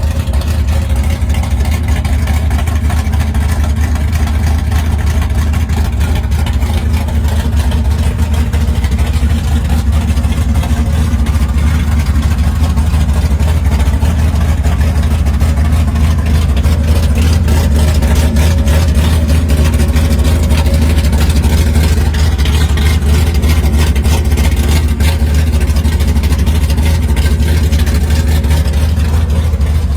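A gasser hot rod's engine running loud and steady, with rapid, even exhaust pulses and no clear revving. It cuts in suddenly at the start.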